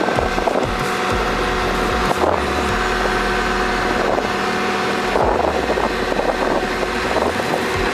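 Heavy construction machinery engine running steadily under load, with rougher, louder patches about two seconds in and again around five to six seconds.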